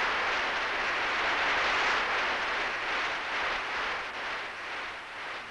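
A large audience in a congress hall applauding, a dense, steady ovation that fades near the end.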